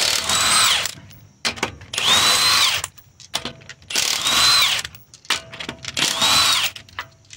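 Milwaukee cordless impact wrench spinning 19 mm lug nuts off a wheel, in four bursts of about a second each. In each burst the motor's whine rises as it spins up and falls as it stops.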